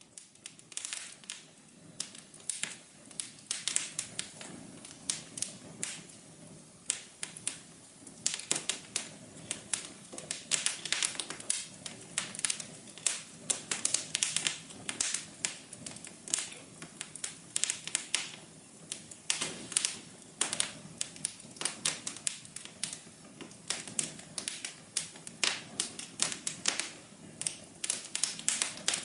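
Fireplace fire crackling: many irregular pops and snaps, dense and uneven, over a soft steady low background of the burning fire.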